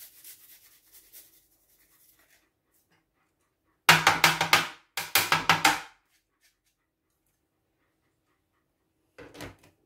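Garlic being grated on a small hand grater: two loud bursts of rapid scraping strokes about four seconds in, and a shorter burst near the end.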